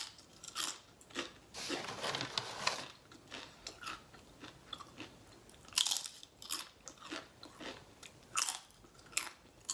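A person chewing a mouthful of Chipotle bowl close to the microphone, with irregular crunchy bites and mouth clicks.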